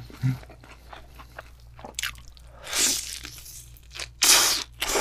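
Biting and chewing crispy, sauced Korean fried chicken (yangnyeom chicken): soft wet chewing sounds with two loud crunches, about three seconds in and again just after four seconds.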